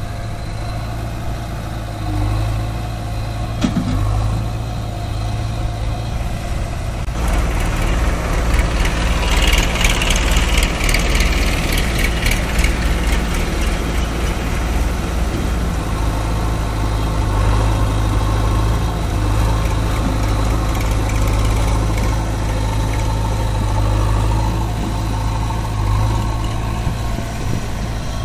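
Eicher 551 tractor's diesel engine idling steadily. About seven seconds in the sound grows fuller and noisier, then settles back to a steady idle.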